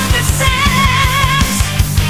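AI-generated heavy metal song with fast, pounding drums and distorted guitar. A held, wavering high note runs through the middle.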